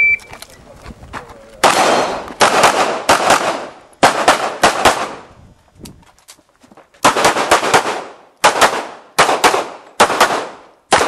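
A shot timer gives one short electronic beep at the very start, then a semi-automatic pistol fires rapid strings of shots, mostly in quick pairs, each shot ringing briefly. The firing stops for about two seconds around the middle, then resumes in further pairs.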